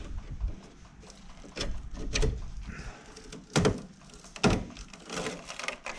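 A few sharp knocks and clunks, four stronger ones spread over the seconds, with low rumbling and scuffing between them.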